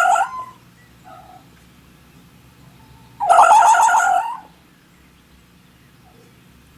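Two loud bird calls: a short one right at the start and a longer, rapidly warbling call about three seconds in.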